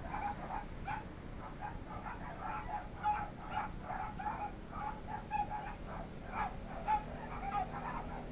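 Dog whining in a rapid string of short, high whimpers.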